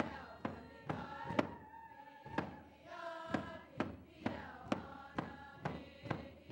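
Group of dancers and singers singing a Northwest Coast dance song in unison over a steady drum beat, about two beats a second; the singing dips briefly about two seconds in while the beat carries on.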